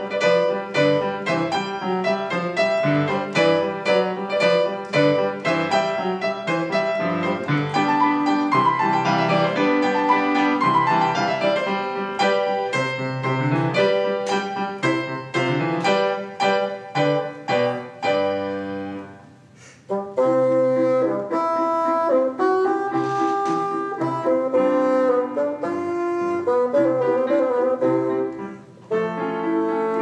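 Bassoon and piano playing a classical concerto movement: quick piano passages at first, a brief pause a little before two-thirds of the way through, then the bassoon comes in with long held notes over the piano accompaniment.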